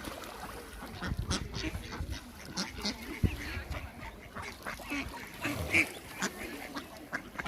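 Ducks quacking, many short calls in quick succession, with a sharp knock about three seconds in.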